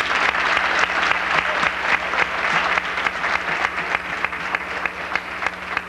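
Banquet audience applauding: dense clapping of many hands that eases a little toward the end.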